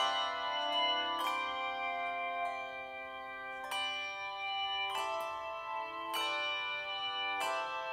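Handbell choir playing a slow piece: about six struck chords, each left to ring and fade before the next.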